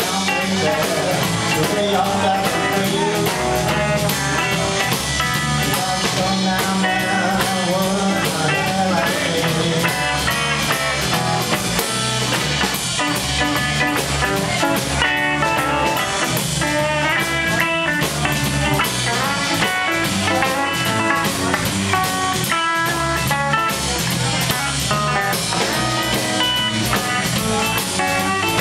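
Live blues band playing: a Telecaster-style electric guitar carries the lead lines over electric bass and a drum kit.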